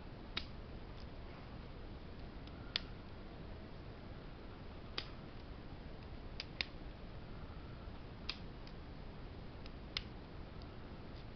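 Brass padlock with a hardened steel shackle being handled, giving about seven sharp metallic clicks a second or two apart, two of them in quick succession near the middle, with fainter ticks between.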